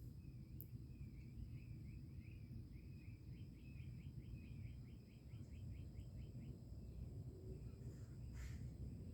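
A frog calling: short, high notes that come faster and faster and settle into a rapid train of about eight a second, then stop about five seconds in. A steady high whine runs underneath, and there is a brief rustling noise near the end.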